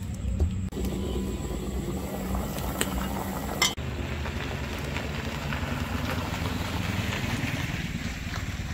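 Outdoor rumble of wind on the microphone with a motorbike pulling a trailer cart passing on a dirt road, a steady noisy sound with a short break about a second in and again near the middle.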